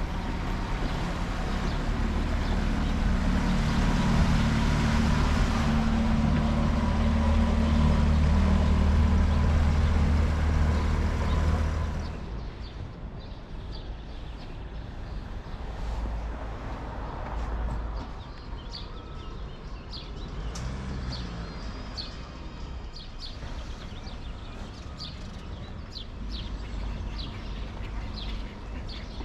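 A steady low engine rumble from a vehicle that cuts off abruptly about twelve seconds in. Quieter outdoor ambience with many short bird chirps follows.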